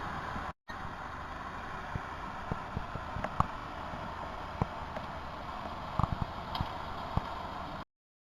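Steady rushing noise with scattered short knocks and clicks. It drops out briefly about half a second in and cuts off abruptly near the end.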